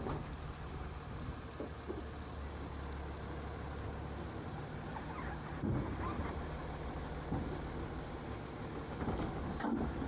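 Garbage truck engine running steadily while the hydraulic arm of a New Way automated side-loader grabs a trash cart and lifts it to dump. Sharp clanks come about halfway in and again near the end as the arm handles the cart.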